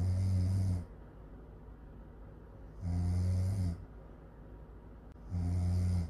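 A sleeping young woman snoring: three short, low-pitched snores of under a second each, coming about every two and a half to three seconds.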